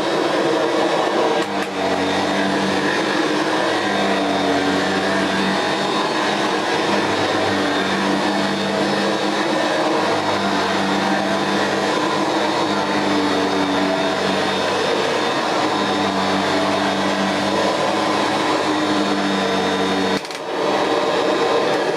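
Kirby upright vacuum cleaner running steadily: a motor hum over the rush of air, with a brief dip about 20 seconds in before it picks up again.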